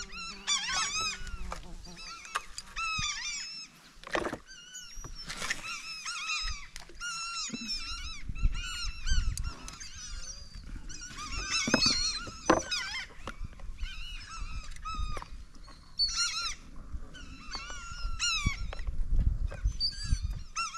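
A large flock of fish-eating birds calling without pause, many short, high cries that rise and fall and overlap. A few sharp knocks cut in.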